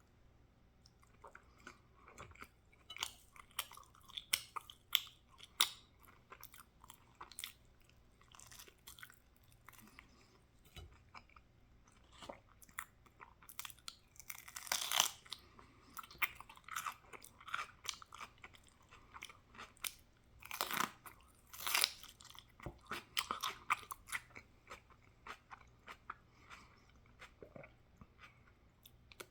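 A person chewing and biting crunchy food, a steady run of small crackling crunches and mouth clicks, with louder crunching bites about fifteen seconds in and twice around twenty-one to twenty-two seconds.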